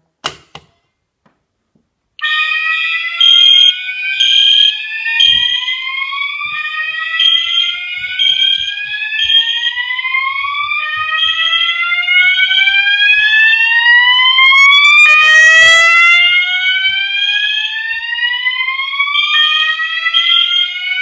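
A Faraday chevron manual pull station is pulled with a click. About two seconds later the fire alarm system goes off loudly: several sirens sweep slowly upward in pitch, overlapping and restarting out of step, over a high horn tone that pulses about once a second.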